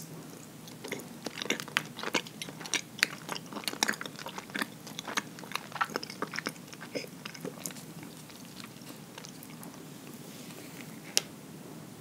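Close-up chewing of soft, sticky nama habutae mochi, many quick mouth clicks packed together for the first seven seconds or so, then thinning out. A single sharp click comes about eleven seconds in.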